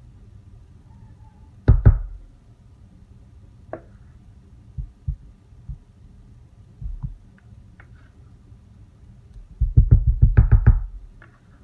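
Dull knocks of a spatula and plastic container bumping against a wooden soap mold as thick soap batter is scraped out. Scattered single knocks, then a fast run of about eight taps near the end as the spatula is knocked clean on the rim.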